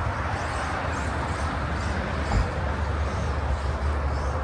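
Steady outdoor background rumble and hiss, with a brief low thump about two seconds in.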